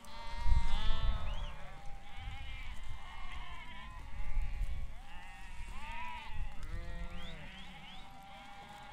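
A flock of sheep bleating, many voices overlapping and calling one after another. Low rumbling noise comes and goes underneath and is loudest about half a second in.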